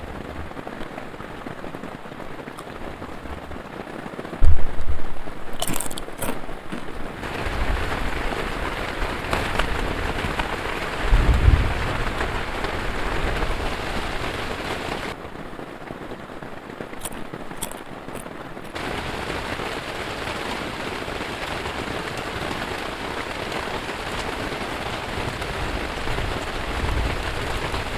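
Heavy rain falling steadily, with a sudden loud boom of thunder about four and a half seconds in and another lower rumble around eleven seconds.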